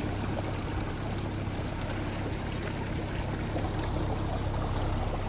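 A boat's engine running steadily at low speed, with water splashing and trickling along the hull.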